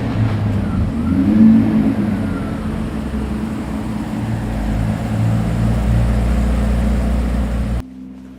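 Mercedes-Benz W140 S600's 6.0-litre V12 engine running and accelerating, loudest about a second and a half in. The level drops sharply shortly before the end.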